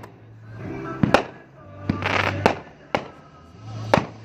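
A 500 g consumer fireworks cake firing: about four sharp bangs of bursting shells, with a burst of crackling hiss about two seconds in.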